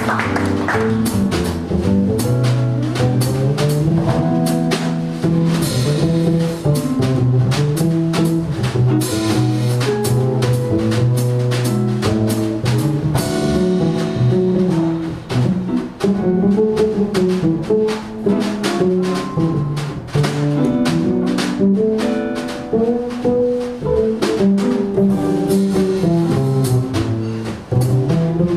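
A small jazz group playing live: guitar over upright double bass, with a drum kit keeping time on cymbals and drums.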